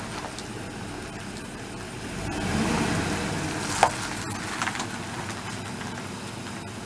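Ford E-Series passenger van rolling slowly over a gravel dirt track, its engine running low while the tyres crunch over stones. It grows louder near the middle as it approaches, with a sharp crack a little under four seconds in and a few smaller pops after.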